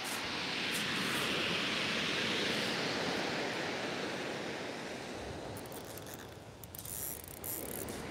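Surf breaking on a shingle beach: a wave's rush swells over the first few seconds and slowly fades, and near the end a fine crackle of pebbles comes in.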